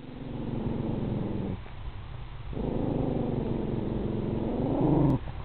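Animal growling at an approaching dog: two long, low growls with a short pause between, the second swelling louder near its end.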